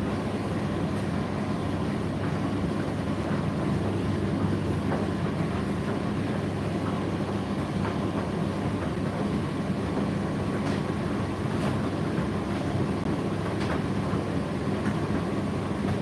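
Indesit IDC8T3 condenser tumble dryer running: a steady hum of motor and turning drum with a thin, high, steady whine, and a few faint ticks here and there.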